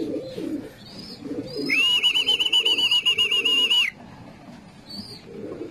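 Pigeons cooing in the loft, a low, uneven murmur throughout. A loud, high tone with a fast, even warble cuts in for about two seconds in the middle.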